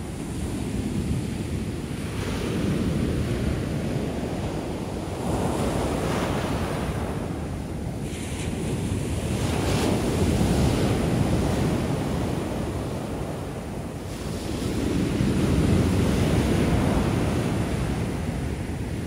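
Atlantic shore-break waves crashing and washing up the beach one after another. The surf swells and eases every few seconds as each wave breaks and runs in.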